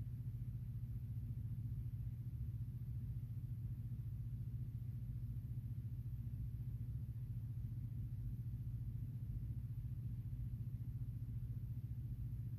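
A steady low hum with a faint hiss, unchanging throughout, and no other sounds: background room noise.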